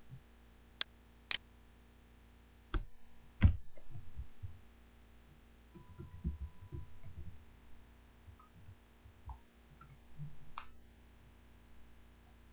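Computer mouse and keyboard on a desk: two sharp mouse clicks about a second in, then two heavier knocks, a run of soft keyboard taps as a web address is typed, and a few more clicks near the end, over a faint steady hum.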